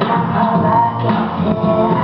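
Belly dance music playing, with held melody notes over a steady low accompaniment.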